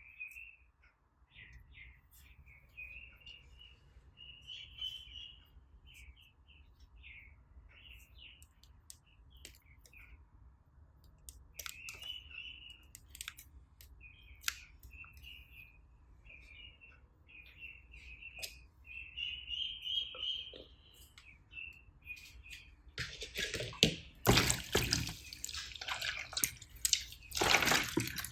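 Slime being worked by hand: a long run of small, high, wet pops and sharp clicks, then louder squelching and crackling in the last five seconds.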